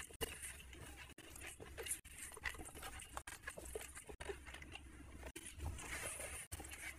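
A bare hand squishing and mixing rice with curry on a ceramic plate, a run of small wet squelches and smacks. Near the end, mouth sounds come in as a handful is eaten.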